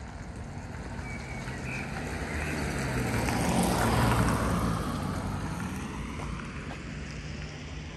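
A motor vehicle driving past, its engine and tyre noise swelling to loudest about four seconds in and then fading away.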